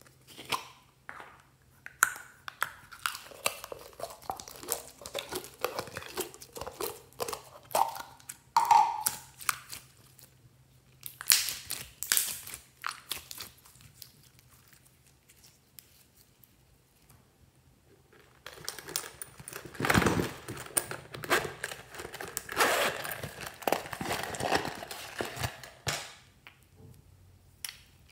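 Slime being squished and stretched by hand, giving an irregular run of small sticky clicks and pops. It pauses for a few seconds midway, then starts again.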